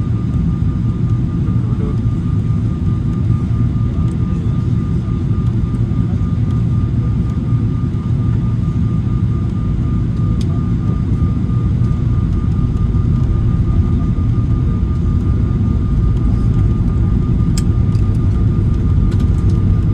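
Cabin noise of a Boeing 777-300ER on approach, heard from a window seat over the wing: a steady low rumble of its GE90 engines and airflow, with a thin steady high tone above it.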